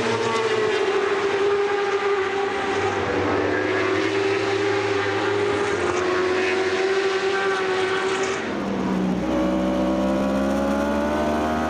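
World Superbike racing motorcycle engine running hard at high revs, heard from an onboard camera. About eight and a half seconds in the note drops in pitch, then climbs slowly again as the bike accelerates.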